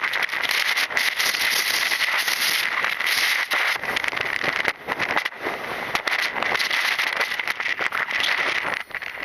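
Storm-force wind buffeting an action camera's microphone: a loud, crackling rush that dips briefly twice about five seconds in.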